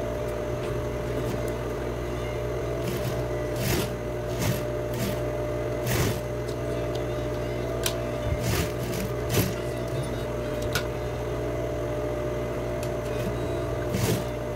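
Sewing machine running steadily while stitching, with a few short clicks and fabric rustles now and then.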